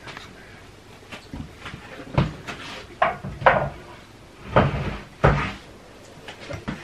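A run of irregular knocks and clunks, about seven of them, as kitchen things are handled and set down, a cupboard door among them.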